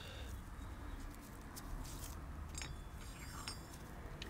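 A few faint, light metallic clicks and clinks as the butterfly (throttle) valve plate of a Bing carburettor is handled and fitted into its throttle shaft, over a steady low room hum.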